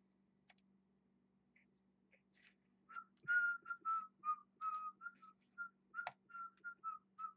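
A person whistling a short, quick tune of about a dozen notes, starting about three seconds in.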